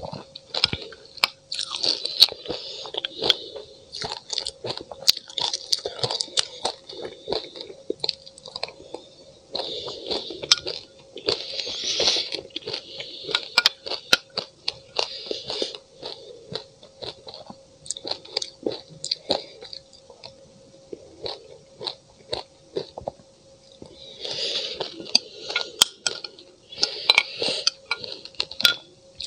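Close-up crunching and chewing of frozen passionfruit and ice mixed with sesame seeds, in repeated mouthfuls with many sharp clicks, from a metal spoon working in a glass mug. The crunching eases off for several seconds in the middle, then picks up again near the end.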